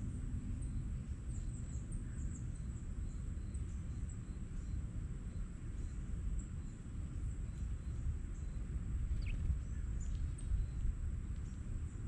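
Steady low outdoor rumble with a thin, steady high-pitched tone over it, and faint short chirps from small birds such as sparrows, scattered through.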